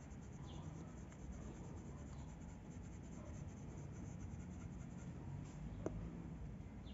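Faint, steady scratching and rubbing of a pipe across a dog's short coat, with one short click about six seconds in.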